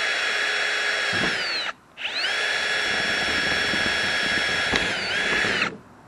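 Cordless drill running at high speed, boring through the pipe tee fitting and nipple of a kayak cart frame to make a hole for a locking pin. A steady whine stops briefly a little under two seconds in, winds back up, and then winds down and stops near the end.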